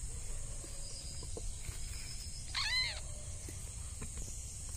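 An animal's single short call, rising then falling in pitch, about two and a half seconds in, over a steady high hum of night insects.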